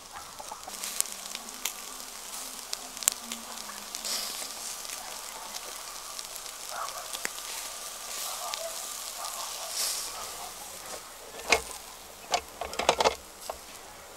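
Food sizzling over a campfire, with scattered crackles from the fire. A few louder, sharp knocks and clatters come near the end.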